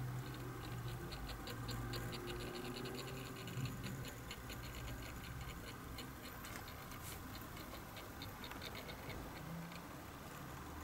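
Display turntable turning, its drive giving fast light ticks, about seven a second, over a low steady hum; the ticks thin out midway and stop near the end.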